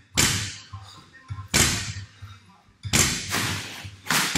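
A loaded barbell's bumper plates striking the gym floor four times, about a second and a half apart, each a sharp thud with a short ringing tail, as reps are cycled.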